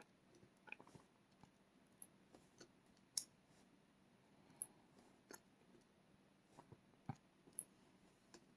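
Faint, irregular small metal clicks and ticks, about a dozen, the loudest about three seconds in. These are key pins being set one by one into the plug of a pin-tumbler rim cylinder lock as it is reassembled.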